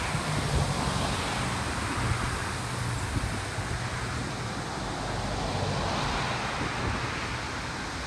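Wind blowing across the river: a steady rushing noise with a low rumble, swelling briefly about six seconds in.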